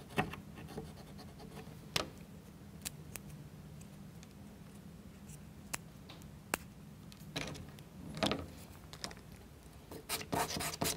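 Faint, sparse sharp clicks as the wooden toothpick pins of a plywood model crankshaft are cut through with a craft knife and the small wooden parts are handled. Near the end come short scratchy rasps as the cut ends are rubbed smooth on sandpaper.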